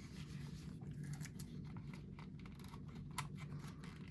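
Faint scattered clicks and light rustling of hand handling, over a low steady hum, with one sharper click about three seconds in.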